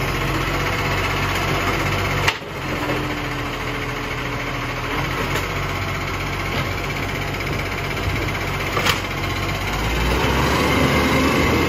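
Side-loader garbage truck running while its hydraulic arm lifts and tips a wheelie bin into the hopper, with a steady hydraulic whine and a sharp bang about two seconds in. The engine picks up near the end as the truck moves off.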